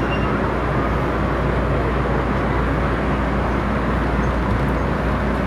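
Steady running noise heard from inside an MTR M-train electric multiple unit carriage in motion: wheels on rail and running gear, even and unbroken.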